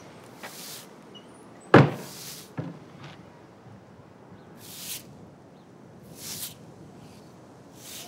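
A door bangs shut about two seconds in, with a smaller knock just after. Between them, a broom sweeps a street in repeated swishes, about one every second and a half.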